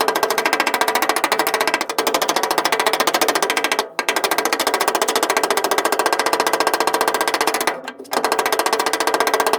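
Pneumatic air hammer rattling rapidly against the steel rear quarter panel of a Mk2 Ford Escort, working a dent outward. It hammers in long runs, with short breaks just before 4 s and about 8 s in.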